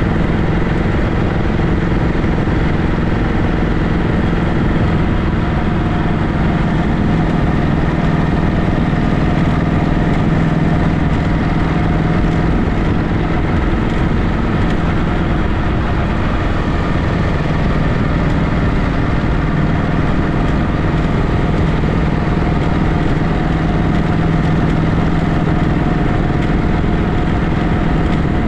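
1937 Matchless Model X side-valve V-twin motorcycle engine running steadily at an even pitch.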